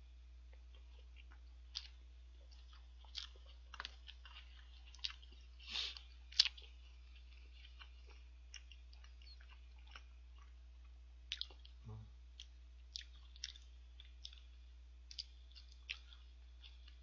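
A person chewing a mouthful of hamburger, with scattered short wet mouth clicks and smacks, the loudest about six seconds in.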